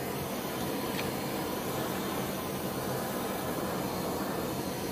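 MAPP gas hand torch burning with a steady rushing flame, played over thin steel cutouts to preheat them and drive off condensation. A faint tick about a second in.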